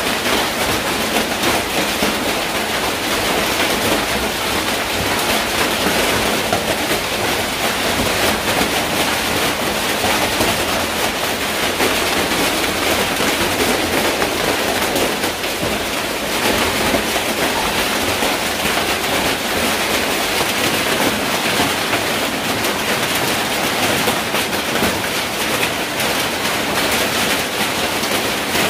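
Hail and heavy rain pelting corrugated metal roofs and the ground: a dense, steady clatter of countless small impacts.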